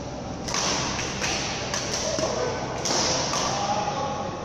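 Badminton rally: a string of sharp racket strikes on the shuttlecock, with footwork on the court, echoing in the hall.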